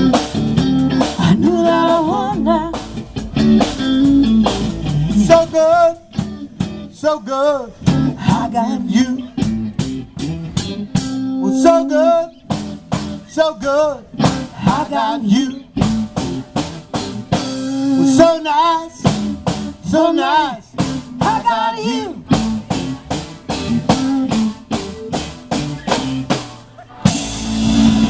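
Live band playing an instrumental funk-blues passage: drum kit hits with electric guitar playing wavering, bent-sounding lines. There is a short break near the end.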